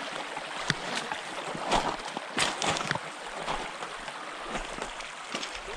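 Trout stream water running, with irregular close splashes and sloshing in the water.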